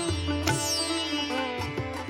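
Indian instrumental background music led by a plucked sitar-like string instrument over a steady low drone.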